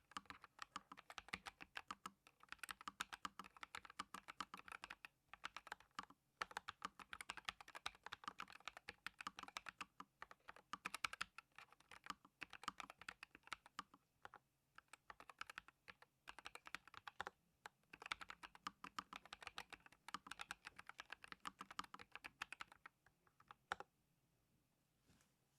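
Typing on a NuPhy Air 75 V2 low-profile mechanical keyboard with factory-lubed Aloe linear switches: fast, continuous keystrokes in runs broken by short pauses, stopping about two seconds before the end.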